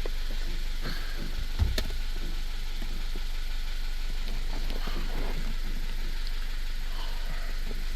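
Car engine idling steadily, with a single low thump about a second and a half in and a few light clicks.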